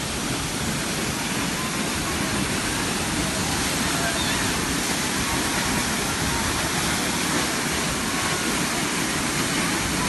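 Waterfall pouring into a river pool: a steady, unbroken rush of falling water, with faint voices in the background.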